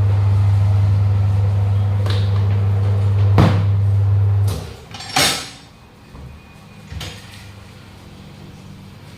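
A steady electric machine hum that stops about four and a half seconds in, with several knocks and a louder clank of metal tools on a truck tyre and rim.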